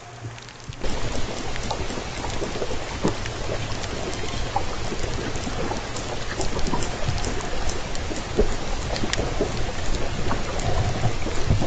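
Underwater hydrophone sound with J pod killer whales passing: a dense crackle of clicks over hiss and a steady low hum, starting suddenly about a second in.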